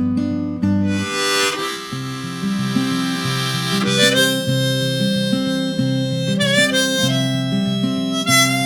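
Harmonica playing long held notes, some bent in pitch, over a picked acoustic guitar: an instrumental break between the sung verses of a folk song.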